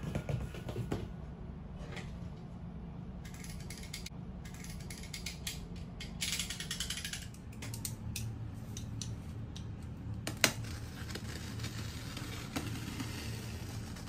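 A box cutter slitting packing tape on a cardboard box, with scattered clicks and scrapes of the blade and hands on the cardboard. About a second of hissing slicing partway through, and one sharp click about three-quarters of the way in.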